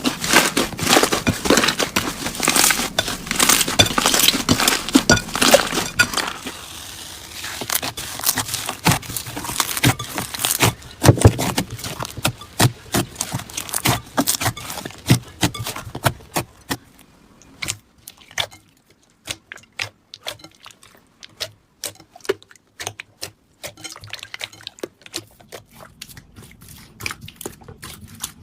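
Slime being squeezed and pressed by hand, crackling and popping. The crackling is dense for about the first six seconds, then thins out into scattered, quieter pops and clicks, with one louder squelch near the middle.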